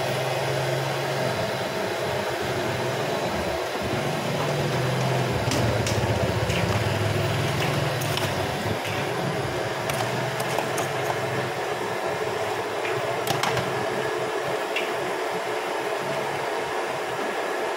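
A steady low mechanical hum over a noisy background din, with scattered sharp clinks of metal serving spoons against a stainless steel tray of fried chicken.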